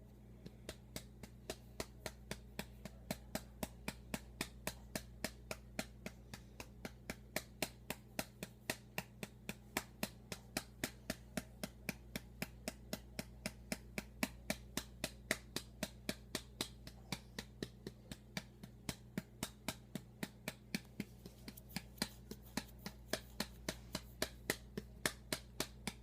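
Steady patting on the back of an electronic baby doll to burp it, about three light pats a second, over a low steady hum.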